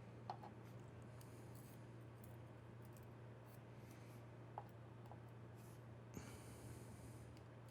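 Two faint, sharp clicks of small lock parts and tools being handled while pins and springs are loaded into a padlock's pin chambers, one just after the start and one about halfway, with a faint scrape near six seconds, over a steady low hum.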